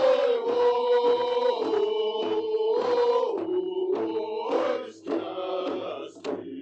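Chanted singing: one long held note for about four and a half seconds, then a shorter phrase begins, over a steady low beat.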